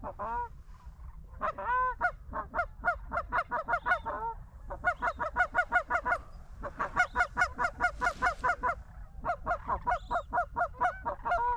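Goose honking in four quick runs of short, evenly spaced honks, about four to five a second, with brief gaps between the runs.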